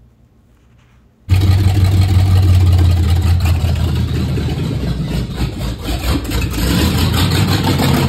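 Engine of a 1951 Chevy, newly installed, coming in suddenly about a second in and then running loudly and steadily with a deep hum.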